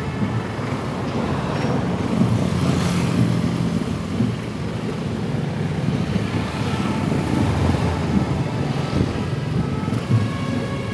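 Motorcycle engine running steadily, heard close up from the pillion seat, with surrounding traffic noise.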